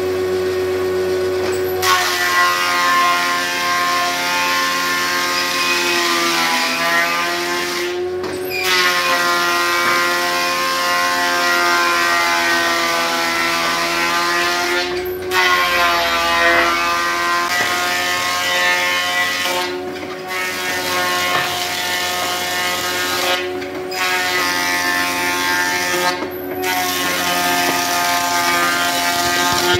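Thickness planer running under load as boards are fed through, its cutterhead giving a steady high whine over loud cutting noise. The pitch sags as a board bites, and the cutting noise breaks off briefly several times.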